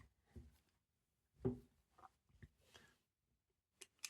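Faint handling of a small lock and tools on a work surface: a soft knock about a second and a half in, a few light scrapes, then two short sharp clicks near the end.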